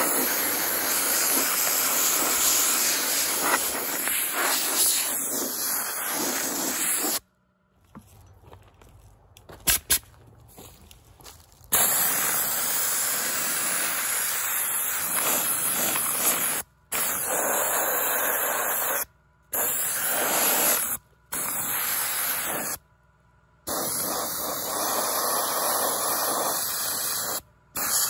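Harbor Freight gravity-feed handheld soda blaster shooting baking soda on compressed air against a steel wheel: a loud, steady hiss. The hiss stops for about four seconds a quarter of the way in, then comes back in several long bursts with short breaks between them.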